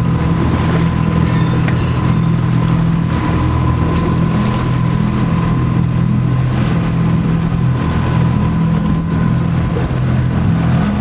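A boat's motor running steadily, a low even drone with no change in speed.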